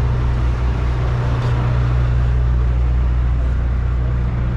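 Steady low hum of a sportfishing boat's engine running, unchanging throughout.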